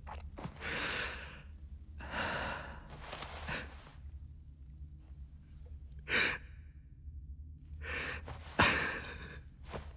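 A man crying: a series of ragged, sighing breaths, sharp inhales and shaky exhales, about seven in all, the loudest a little before the end, over a faint low hum.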